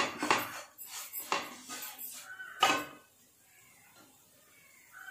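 Wooden spatula scraping and knocking against a nonstick frying pan, stirring a dry masala of fried shallots and coconut pieces. The strokes stop about three seconds in.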